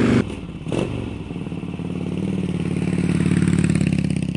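1995 Harley-Davidson Heritage Softail Classic's 80 cubic inch Evolution V-twin idling through Rush slip-on mufflers, with a steady pulsing beat.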